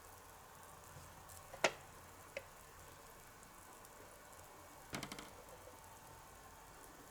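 A few small clicks and taps of miniature toy kitchenware being handled: one sharp click about a second and a half in, a lighter one soon after, and a quick cluster of clicks around five seconds in, over a faint steady hiss.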